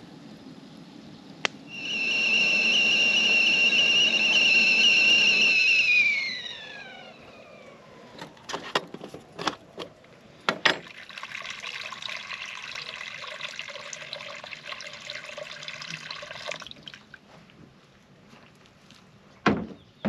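A kettle whistling on one high note for about four seconds, then sliding down in pitch and dying away. A few clicks follow, then hot water pouring steadily for about five seconds.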